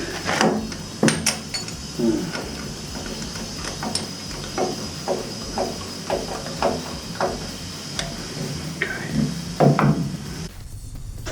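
Metal clinks and knocks of tools against steel gas pipe and fittings, with a run of evenly spaced short strokes about two a second in the middle and a few louder knocks near the start and near the end.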